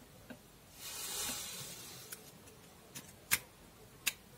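Handling noise from a Huawei Y9 2019 smartphone as its SIM card tray is pushed back into the slot. A brief rustle comes about a second in, then a few small sharp clicks, the loudest about three seconds in.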